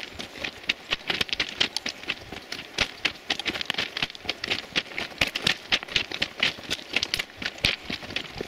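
Footsteps crunching on railway track ballast, a quick irregular run of gravel crunches from someone walking along the line.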